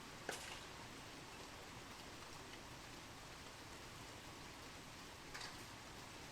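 Steady rain falling, an even hiss, with two sharper taps of single drops striking a surface, one just after the start and the other about five seconds in.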